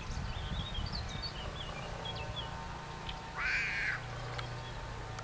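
Greylag goslings peeping in short, soft, high chirps, and one loud, harsh goose call about three and a half seconds in.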